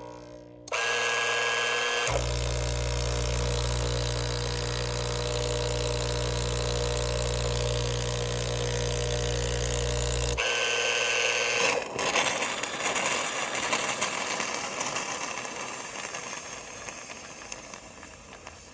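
Krups EA bean-to-cup espresso machine running through a cycle. A steady mechanical buzz lasts about ten seconds, then gives way to a hiss of water and steam that slowly fades. The machine is leaking water.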